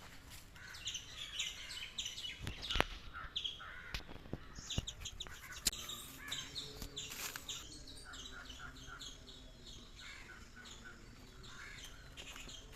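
Small birds chirping in quick, repeated short notes, with a few sharp clicks or knocks in the first half.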